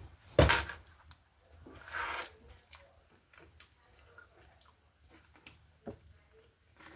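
A person chewing a forkful of chicken-and-rice burrito bowl, with small wet mouth clicks. There is one sharp knock just under half a second in, and a single soft thump near the end.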